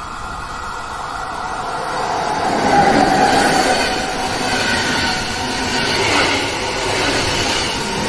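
Swiss Federal Railways (SBB) passenger train passing close by, its wheels running on the rails. The sound grows louder and peaks about three seconds in as the coaches go past, then stays loud.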